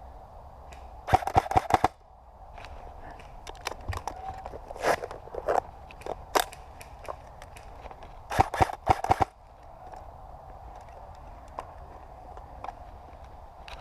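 Airsoft rifle firing two short bursts of rapid, snappy shots, about a second in and again about eight seconds in, with scattered single sharp clicks in between.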